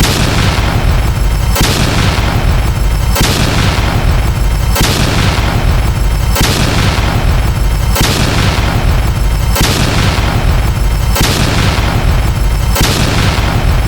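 Explosion sound effect repeating about every second and a half, each blast fading off into a noisy tail over a constant deep rumble.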